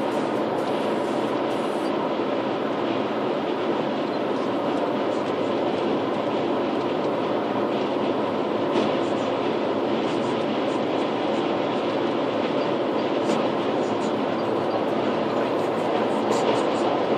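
Steady road and tyre noise with the drone of an Audi A4 Avant's turbodiesel engine, heard inside the car's cabin at cruising speed, a little louder near the end.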